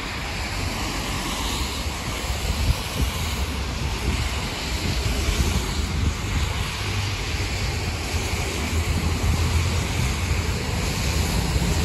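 Car tyres hissing on a wet road as traffic passes, with wind buffeting the microphone.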